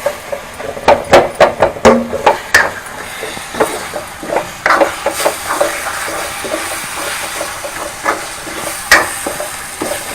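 Spatula stirring and scraping onion-tomato masala frying in oil in a pan, with a steady sizzle. There is a quick run of scrapes and knocks against the pan about a second in, then slower, scattered strokes. The masala is being fried until its raw smell is gone.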